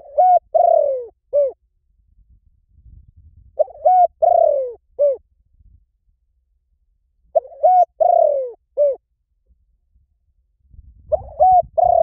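Spotted dove cooing: a four-note phrase of two short rising coos, a longer falling coo, and after a short gap a final coo, repeated about every three and a half seconds.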